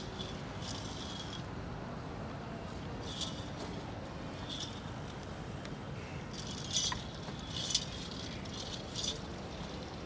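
Metal anklets on a cow's leg jingling in about six short jangles as the animal shifts its feet, over steady background noise.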